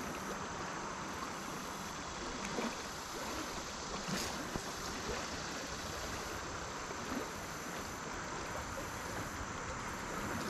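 Shallow, rocky river flowing steadily: a constant rushing hiss of moving water.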